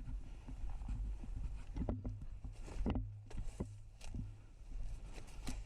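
Irregular footsteps and gear rustling of a player on the move, with scattered knocks over a low steady rumble.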